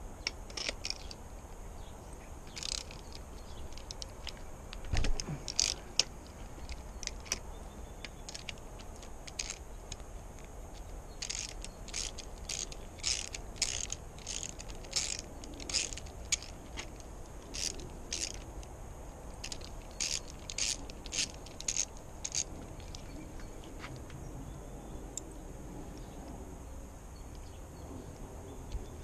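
3/8-inch drive ratchet clicking as it backs spark plugs out of a two-stroke V6 outboard, in runs of short sharp clicks, about two a second at its busiest. A thump about five seconds in.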